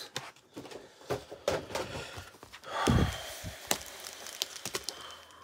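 Plastic and cardboard toy packaging being handled: scattered light clicks and ticks, with a louder rustle about three seconds in.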